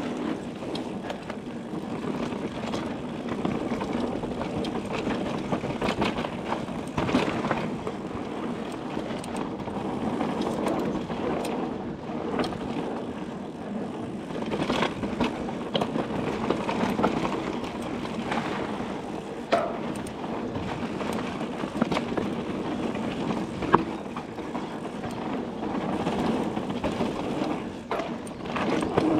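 Mountain bike riding down a dirt forest trail, heard from the bike: a continuous rumble of tyres and rattling parts with scattered sharp knocks from bumps. One knock about four-fifths of the way through is the loudest.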